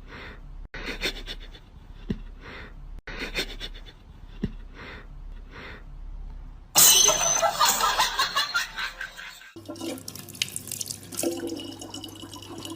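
Water sounds: a regular run of short rushing noises, then a loud burst of splashing about seven seconds in, then water running steadily from a tap with a constant hum.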